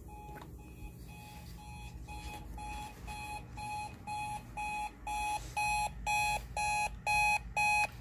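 Sharp digital alarm clock's alarm beeping, short electronic beeps about two a second that grow steadily louder.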